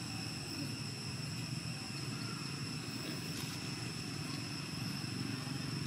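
Steady background rumble with a thin, steady high-pitched whine above it. Neither changes; there are no distinct calls or knocks.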